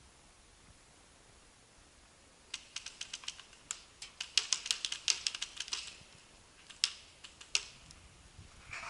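Paintball markers firing in rapid strings of sharp cracks, densest in the middle, then a few single shots near the end.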